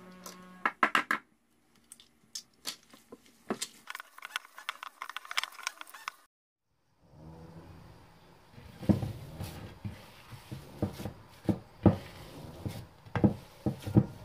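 An egg cracked by hand over a plate of ground almonds and sugar, a few sharp cracks about a second in. After a short break, hands knead and press the moist almond paste in a ceramic plate, with soft squishing and irregular knocks.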